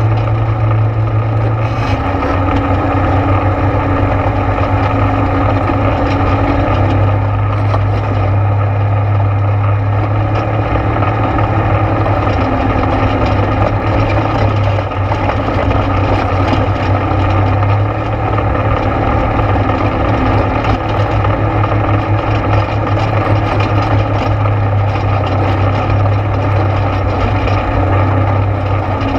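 ATV engine running steadily on the move, its pitch shifting a little with the throttle.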